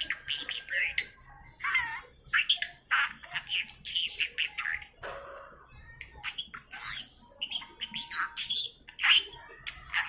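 Pet budgerigar chattering in a fast run of short chirps and squeaky notes, mimicking phrases such as "never shake a baby bird" and "honey, good boy".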